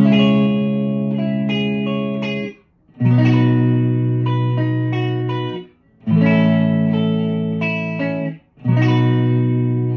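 Electric guitar, a Fender Player Telecaster with Seymour Duncan pickups, played clean through a Vox AC10 amp miked with an SM57: four strummed chords, each left ringing for about two and a half seconds and then cut off, with short silent gaps between them.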